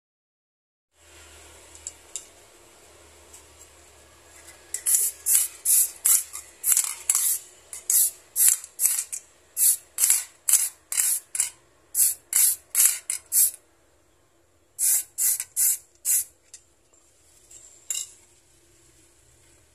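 Aerosol spray can sprayed in short bursts, about two a second, for a long run, then after a pause four more and one last burst, as a small diecast car model is spray-painted.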